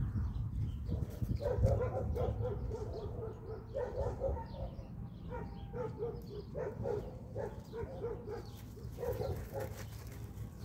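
Young shepherd-type puppies play-fighting, giving short, pitched yips and whines in quick runs through most of the stretch.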